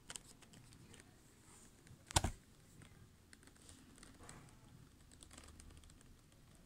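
Faint scattered clicks and taps of fingers handling a clear plastic case of colored pencils, with one sharper click about two seconds in.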